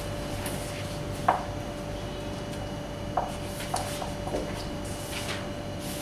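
A handful of short, sharp taps and knocks, the loudest about a second in, over a steady hum in the room.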